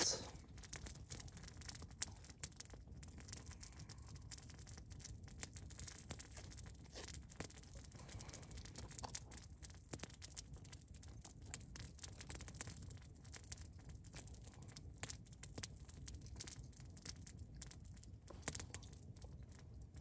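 Faint scraping and small clicks of a pocketknife cutting at something held in the hands, scattered irregularly with one sharper click about two seconds in.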